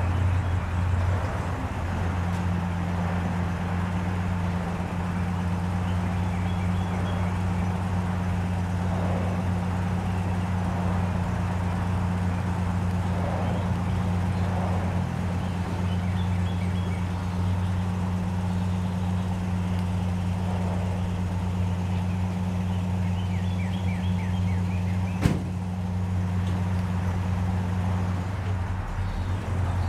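1949 GMC pickup's engine idling steadily with an even low hum. There is one sharp click about 25 seconds in, and the hum changes near the end. Birds chirp faintly.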